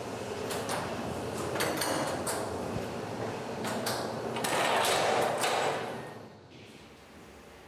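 Clanks, knocks and rattles of metal brewhouse fittings being worked by hand at a copper mash pan, with a louder rushing noise for about a second near five seconds in. About six seconds in it drops to a faint steady noise.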